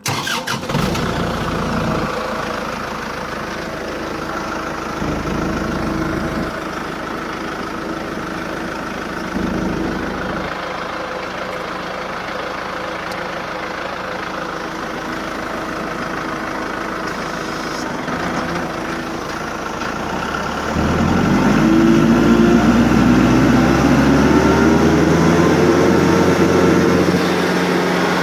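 Tractor engine powering a Woods TSG50 PTO-driven stump grinder, starting up abruptly and running steadily. About 21 s in it gets louder, with rising whining tones as it revs up to drive the grinder.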